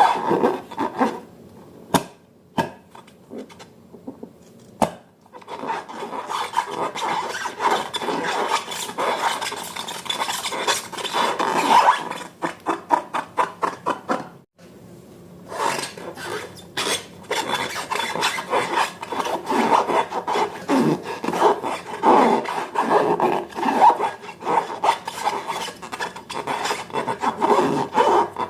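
Slime being worked by hand, a dense run of sticky, crackling clicks and rubbing, with short pauses a couple of seconds in and near the middle.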